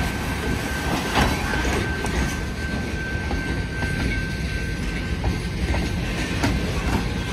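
Freight cars rolling past at close range, a boxcar followed by centerbeam flatcars loaded with lumber: a steady low rumble of wheels on rail with scattered clicks over joints. A thin, steady high-pitched wheel squeal runs through it.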